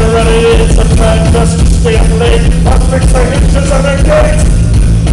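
Live rock band playing loud, with electric guitar and a steady pounding low end, and held, wavering notes carrying the melody.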